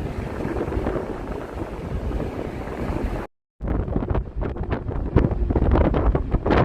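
Steady rush of road and wind noise from a moving car, broken about three seconds in by a moment of total silence. After it, gusty wind buffets the microphone in rapid, uneven thumps.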